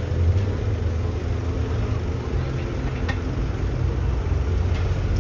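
City street traffic: a steady low rumble of passing cars and engines.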